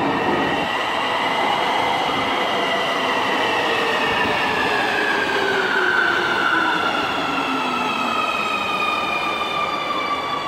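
Nuremberg U-Bahn metro train pulling into the station and slowing. A high whine falls steadily in pitch over running and rolling noise as it slows.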